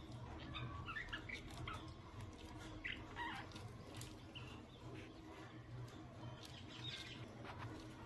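Pet budgerigars chirping and chattering softly in a short, scattered series of calls, with small clicks among them, over a steady low hum.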